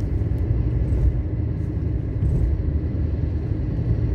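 Steady low rumble of a moving car heard from inside the cabin: road and tyre noise with the engine underneath.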